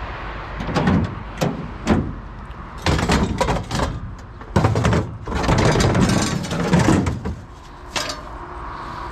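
Knocks, clunks and rattling of objects being handled and moved. A few sharp knocks come in the first two seconds, then a longer stretch of clattering and scraping from about three to seven and a half seconds in, and one more knock about eight seconds in.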